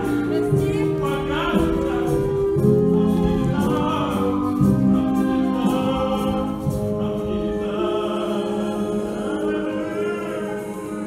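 A song playing: music with singing, made of held notes and sung lines.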